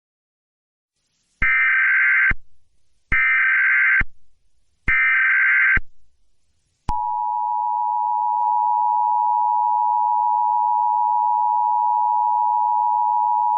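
Emergency Alert System SAME header: three loud, shrill data bursts of about a second each, then about a second later the steady two-tone EAS attention signal begins and holds.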